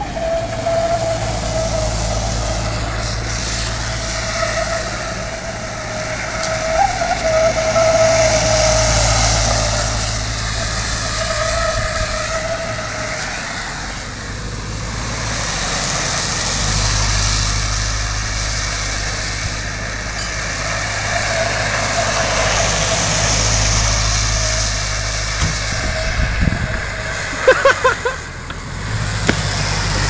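Puch G military off-roader driving around a concrete lot, its engine running with a note that swells and eases. A few sharp knocks near the end.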